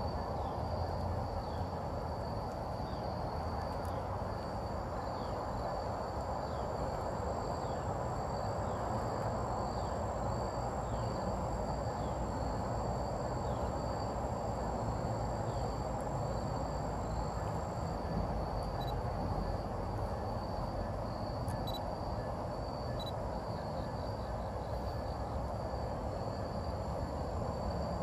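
Outdoor ambience of an insect chorus, a steady high trill, over a steady low background rumble. A short falling chirp repeats about once a second through the first half.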